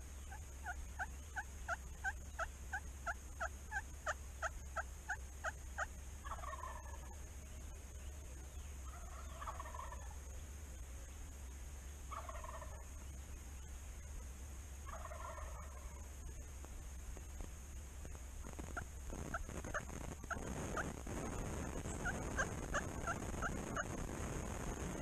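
Wild turkey calling: a long run of short yelps, about three a second, then four gobbles about three seconds apart, each falling in pitch, then another run of short yelps near the end.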